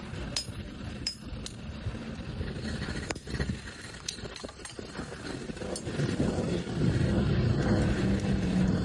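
Hand hammer strikes and metal clinks on iron at irregular intervals, each a sharp tap with a short ring, over a low rumble that grows louder about six seconds in.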